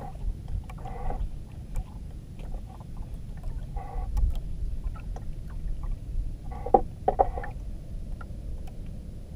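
Water lapping against the hull of a small outrigger banka over a low wind rumble, with a few short slaps of water against the boat about a second in, near the middle and near the end.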